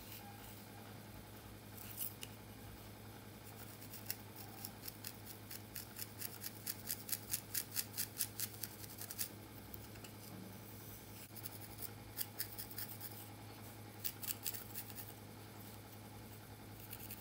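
Close-up crackling and scratching of fingers and a wooden comb working through coarse hair as cornrows are taken down. The crisp snaps come about three a second in the middle, with another cluster near the end.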